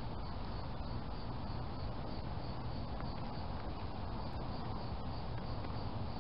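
Steady hiss and low rumble from a trail camera's microphone, with a faint, evenly repeating high tick. No distinct event stands out.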